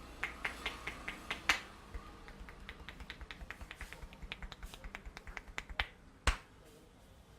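Neck joints cracking: a handful of sharp pops in the first second and a half, then a quick run of lighter clicks about four a second, then one loud crack about six seconds in.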